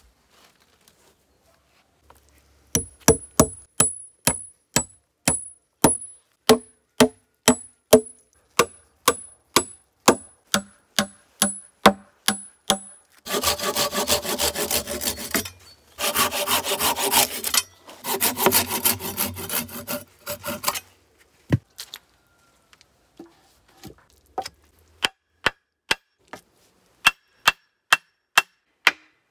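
A hand saw cutting through the top of a wooden stake, back-and-forth strokes in three runs. It comes between long series of sharp knocks of a tool on wood, about two a second, some with a high ringing.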